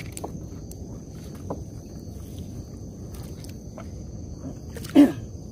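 Trammel net being hauled by hand over the side of a small boat, with wet rustling and small clicks and knocks as the mesh is pulled in, while insects chirr steadily in the background. A brief loud pitched squeak or creak sounds near the end.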